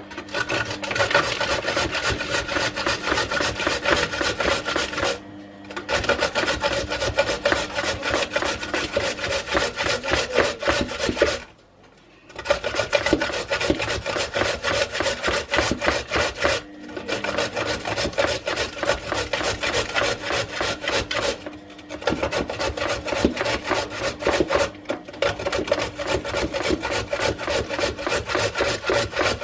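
A carrot being grated on a metal hand grater: rapid rasping back-and-forth strokes that stop briefly every few seconds.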